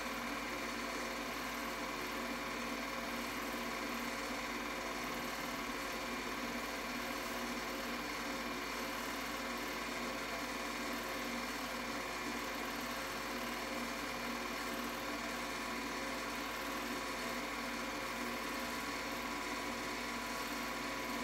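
Home-movie film projector running steadily, its motor and film mechanism giving a continuous, even mechanical sound.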